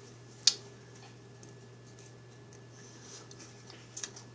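A fork clicking sharply once about half a second in, then a few faint ticks, as a piece of mug-baked sugar cookie is taken and eaten, over a steady low hum.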